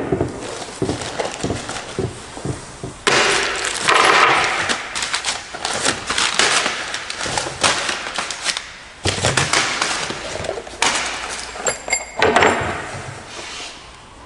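New exhaust parts being unpacked and handled: packaging rustling, with irregular clinks and knocks of metal parts against each other and the table.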